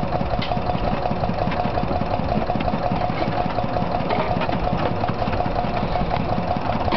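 Pan-type concrete mixer running steadily, its drive turning the blades through a load of concrete, with a fast, even ticking over the machine's hum.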